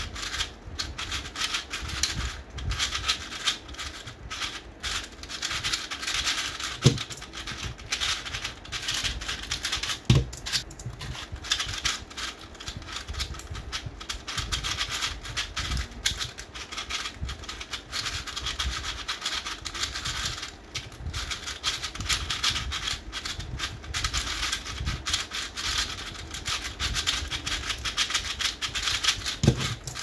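3D-printed plastic 3x3 speed cubes, PLA and PETG, turned rapidly during a solve: a dense run of small plastic clicks and clacks as the layers snap round. Two sharper knocks, about seven and ten seconds in, are the loudest sounds.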